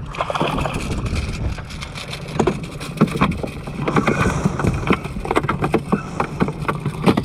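Sounds of a small fishing boat on the water: a steady low rumble of wind on the microphone with water noise, broken by many short knocks and splashes.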